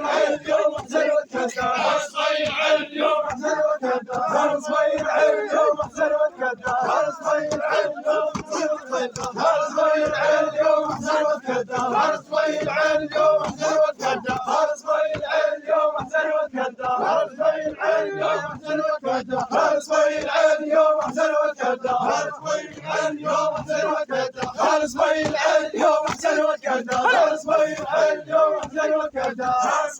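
A crowd of men chanting together in a loud, unbroken mourning chant at a funeral procession, with many short sharp sounds mixed through the voices.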